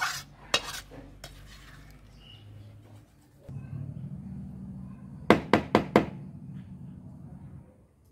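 Metal spatula scraping and clacking against a black kadhai for about the first second. Later a low hum sets in, with four quick sharp knocks about a quarter second apart near the middle.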